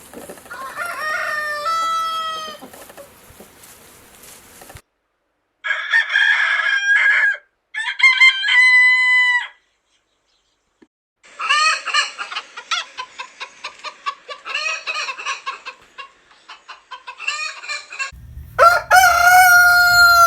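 Several roosters crowing one after another, each crow a long rising-then-held call, separated by abrupt silent cuts. In the middle comes a longer stretch of rapid, short chicken clucks and calls, and a loud crow starts near the end.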